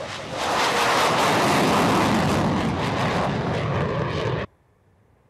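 Loud jet aircraft engine noise, a rushing roar that builds, holds steady, then cuts off abruptly about four and a half seconds in.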